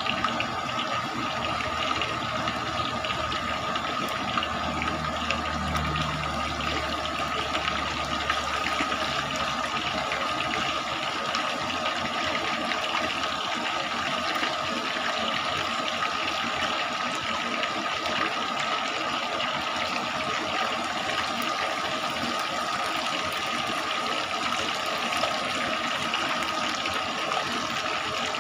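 Pieces of half chicken deep-frying in a large wok of hot oil: a steady sizzle of hard-bubbling oil, with a steady tone underneath.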